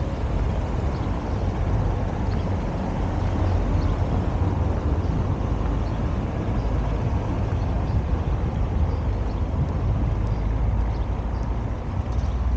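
Steady low rumble of outdoor street ambience in a small town square.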